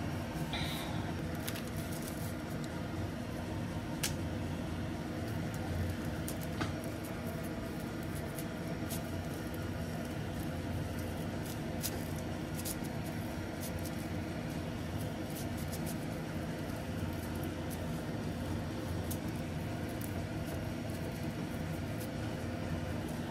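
Soft squishing and pattering of gloved fingers pressing and spreading cooked rice over a sheet of dried seaweed on a bamboo rolling mat, with a few faint clicks, over a steady mechanical hum.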